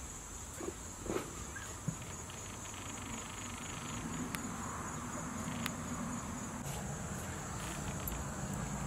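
Outdoor rural ambience dominated by a steady, high-pitched insect trill, with a couple of brief faint sounds about a second in and a few sharp clicks.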